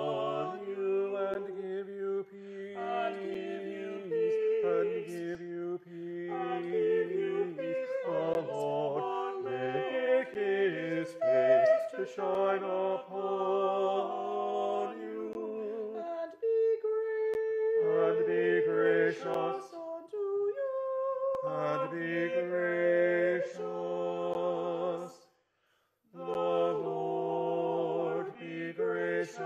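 Church choir singing a benediction response in several-part harmony, in sustained phrases with a slow wavering vibrato and a brief pause near the end.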